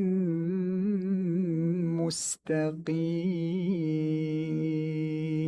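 Male reciter chanting the Quran unaccompanied in melodic tajweed style, holding long drawn-out vowels with small ornamental pitch turns. A short hissing consonant comes about two seconds in.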